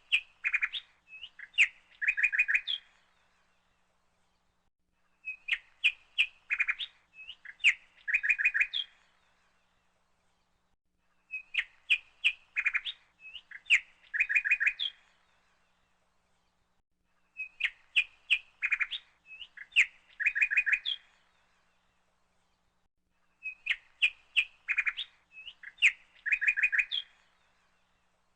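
Bird chirping and trilling in a repeated phrase: the same burst of quick chirps, about three seconds long, comes back about every six seconds, five times in all, with quiet gaps between.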